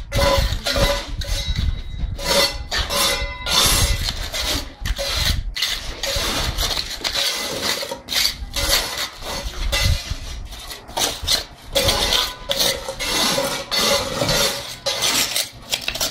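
Steel hand trowel scraping, slapping and patting wet concrete into a metal ring mould, in many quick irregular strokes with clinks where the blade knocks against the mould.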